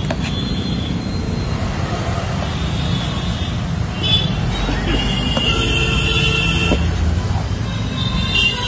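Street traffic noise: a steady rumble of passing vehicles, with a vehicle horn held for about a second and a half past the middle, and voices in the background.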